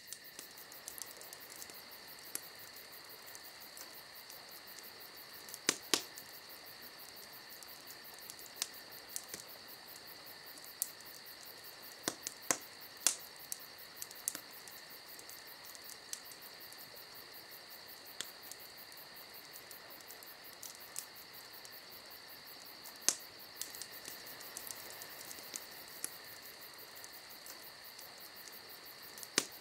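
Steady outdoor chorus of singing insects: a fast, high pulsing over two steady high tones. Sharp clicks come now and then.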